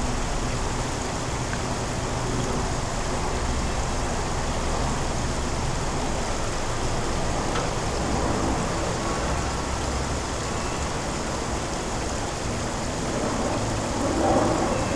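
Steady city background noise: a low rumble with an even hiss over it, swelling briefly near the end.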